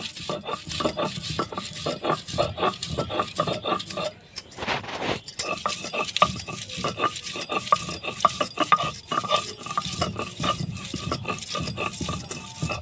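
Stone roller of a sil-batta grinding on the flat grinding stone: fast, irregular knocks and scrapes of stone on stone as garlic, ginger and pumpkin leaves are crushed into chutney paste. There is a brief break about four seconds in.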